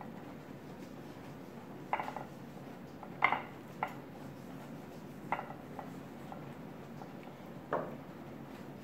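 Raw chicken drumsticks knocking against a ceramic platter as they are turned and rearranged by hand: about five short clinks and knocks, the loudest about three seconds in.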